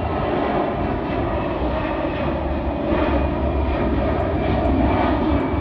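Twin-engine jet airliner flying overhead: the steady noise of its jet engines.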